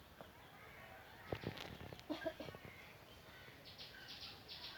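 Faint outdoor bird calls: a short call about two seconds in and a rapid run of high chirps near the end, with a couple of sharp knocks before them.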